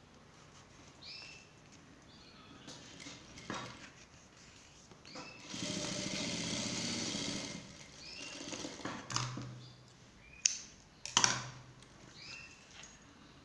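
Industrial lockstitch sewing machine stitching fabric in one steady run of about two seconds near the middle. A few sharp clicks and short low hums follow a few seconds later.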